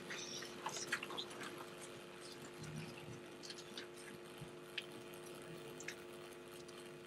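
Quiet ambience of a gathering holding a moment of silence: a steady low hum, with faint scattered ticks and small rustling sounds.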